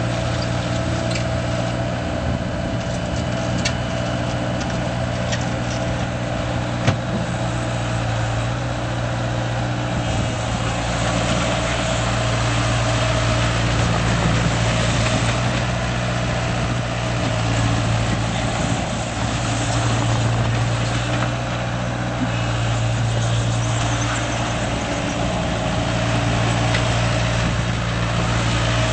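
2011 Bobcat T190 compact track loader's Kubota diesel engine running steadily. From about ten seconds in it gets a little louder and rises and falls in level, with one sharp click about seven seconds in.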